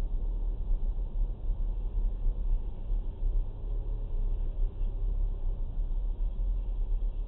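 Low steady rumble of a four-wheel-drive vehicle's engine and tyres on a snowy road, heard muffled from inside the cab as it slows to a crawl.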